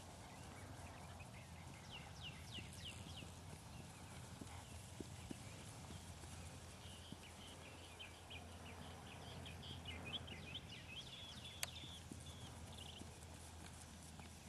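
Faint outdoor quiet: a steady low hum with scattered short, high chirps, heaviest in the latter half, and a few soft knocks, one sharper click near the end.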